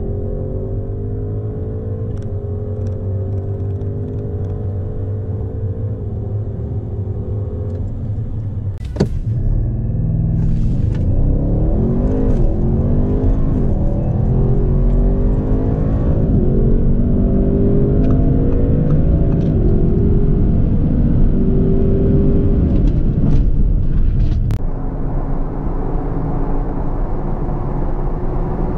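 Twin-turbo 4.0-litre V8 of a 2020 Audi RS7 heard from inside the cabin under full-throttle acceleration: the engine note climbs through each gear and drops back at each quick upshift of the automatic gearbox, several times. A sharp click about nine seconds in, after which it is louder.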